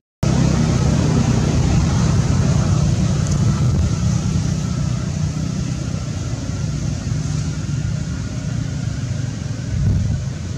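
Steady low rumble with a hiss above it, after a split-second gap at the very start.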